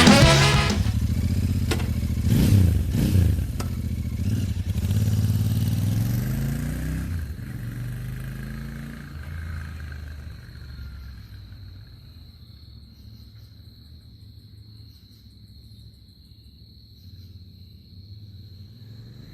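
Royal Enfield Continental GT 650's 648 cc parallel-twin engine on its stock silencers, revved several times in the first few seconds, then settling and fading away over the rest.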